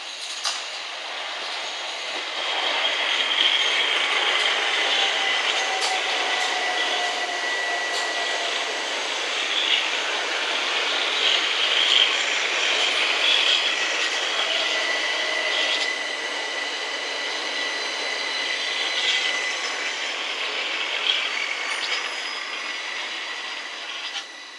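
Southern Class 377 electric multiple unit running through the station at speed: steady wheel-on-rail noise with a high whine and a few sharp clicks as the wheels cross rail joints. It builds over the first few seconds as the train draws level, then eases off near the end as the last coaches pass.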